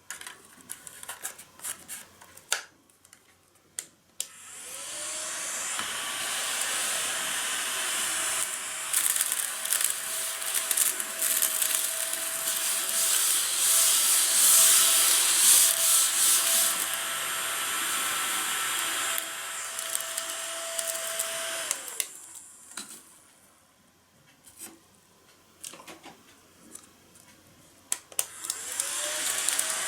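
Daiso battery-powered tabletop vacuum cleaner switched on about four seconds in: its small motor whines up to a steady pitch and runs with a rushing hiss for about 18 seconds, then is switched off and winds down. Clicks and handling knocks come before and after, and it starts up again near the end.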